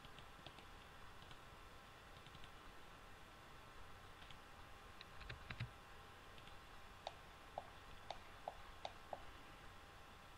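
Faint clicks of a computer mouse and keyboard over a low steady hum: scattered single clicks, a short cluster about halfway through, then a run of about six clicks roughly half a second apart.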